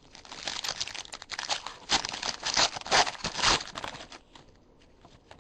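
A foil trading-card pack wrapper being torn open and crinkled by hand, a dense crackle for about four seconds that fades near the end.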